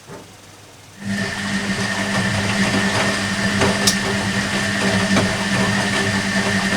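Hoover Electronic A3172 washing machine's drum motor starting up about a second in after a pause in the wash action, then running steadily with a hum and a high whine as it turns the drum during the cottons 40 °C wash.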